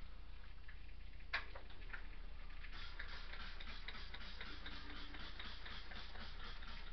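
Kitchenware being scrubbed by hand in a fast, even rhythm of short scratchy strokes, several a second, after a single sharp click about a second and a half in.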